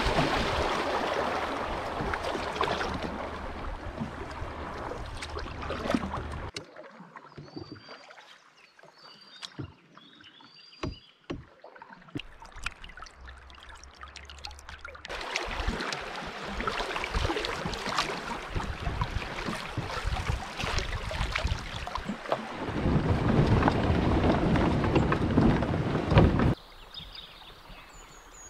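Water rushing and splashing around a canoe running small riffles on a river, with wind buffeting the microphone. About a quarter of the way in the rushing drops away to a quieter stretch with a few short knocks and faint bird chirps, then comes back loud. Near the end it cuts off and a small bird calls briefly.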